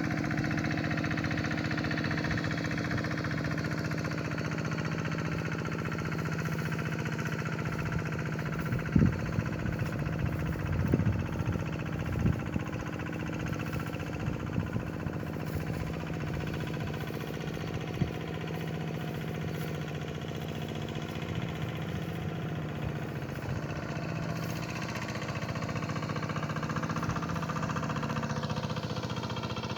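Walk-behind hand tractor engine running steadily, with a few sharp clanks about nine to twelve seconds in and one more a little later.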